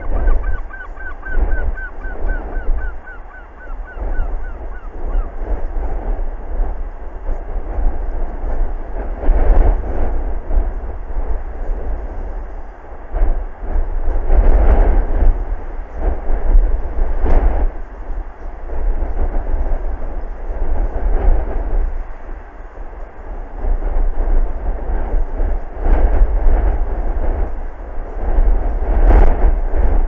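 Strong wind gusting and buffeting the microphone, a deep rumble that swells and falls in gusts. In the first few seconds a bird gives a quick run of short repeated notes that drift slightly lower.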